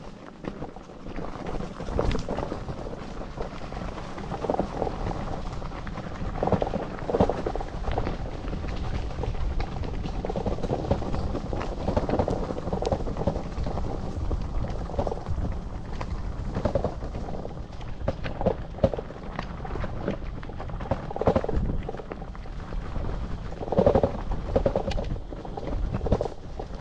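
Vector Vortex electric bike being ridden over uneven ground: a constant rumble of tyres and wind on the microphone, broken by frequent knocks and rattles from bumps.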